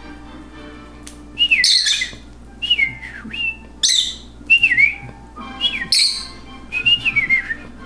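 Lovebird chirping: a string of about five short, sharp calls, each dipping in pitch, starting about a second and a half in.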